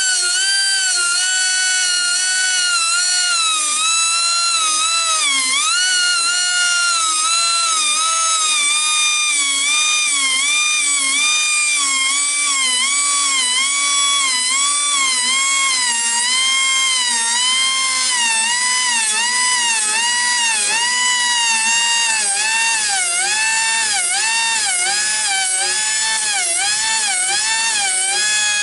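Handheld rotary grinder sharpening a Wood-Mizer bandsaw blade: a high-pitched motor whine that dips in pitch each time the stone is pressed into a tooth and then recovers. The dips come slowly at first and then in a quick regular rhythm, a little more than one a second, as he works from tooth to tooth. The whine sinks gradually overall.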